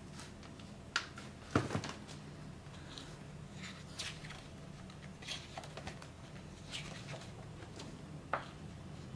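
Glossy pages of a large book being handled and turned: short paper rustles and soft clicks every second or two, over a faint steady low hum.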